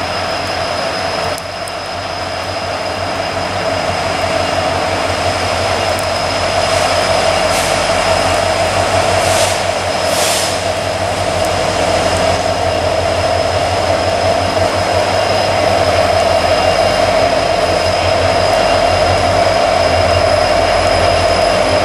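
Norfolk Southern diesel freight locomotives passing close by: a steady engine drone and low rumble that grows louder over the first several seconds, with a thin high whine.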